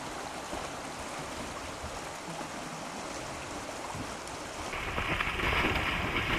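Steady wash of shallow water over the tidal flats, then from about three-quarters through a louder splashing rush as a brown bear plunges through the water chasing salmon.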